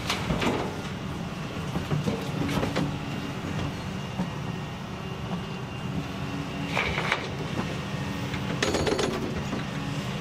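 Doosan DX235LCR excavator's diesel engine running steadily under hydraulic load, with a few metallic clanks and knocks from the bucket and dirt falling into the dump truck's body, near the start, around two and a half seconds, about seven seconds and about nine seconds in.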